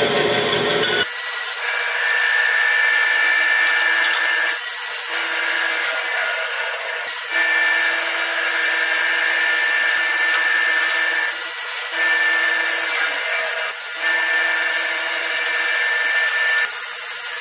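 Bandsaw running while walnut and silver maple boards are ripped into strips against the fence. There are several cuts, with a high whine during each pass and short lulls between passes.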